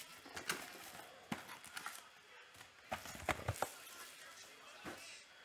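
Plastic shrink-wrap crinkling in the hand and foil trading-card packs set down on a cloth-covered table: a scattering of sharp clicks and short rustles.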